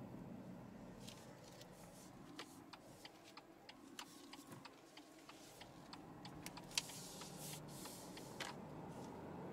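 Steady ticking of a BMW 1 Series' turn-signal indicator inside the cabin, over a low hum of engine and road noise that fades in the middle.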